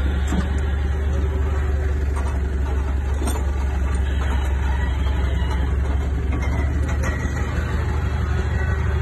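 Steady low mechanical hum, like an engine running at idle, with a few faint clicks and knocks.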